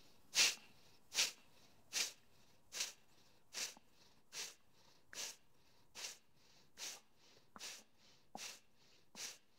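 A woman's forceful exhalations through the nose, a short sharp puff about every 0.8 seconds, fainter after the first few. Each is a pumped breath, the belly pulled in to drive the air out, with a passive inhale between.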